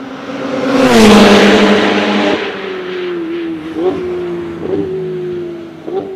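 Track car passing close at speed about a second in, its engine note dropping sharply in pitch as it goes by. The engine then carries on more quietly, with three brief flicks up in pitch in the second half.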